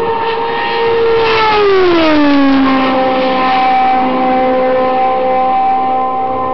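IndyCar's Honda V8 at racing speed passing by: a high, steady engine note drops in pitch about a second and a half in as the car goes past, then holds lower as it runs away down the straight.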